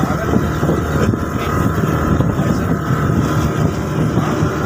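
Motorboat engine running steadily while the boat is under way, with water noise along the hull.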